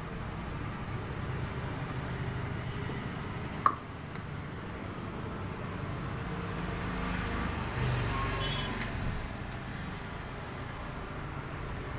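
Steady low background rumble, with one sharp click about four seconds in.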